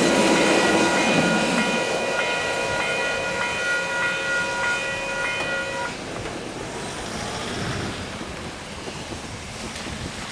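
Steam-hauled excursion train running past over a level crossing, its rumble fading as it goes. The crossing's warning bells ring steadily through the first half and cut off suddenly about six seconds in, once the crossing clears.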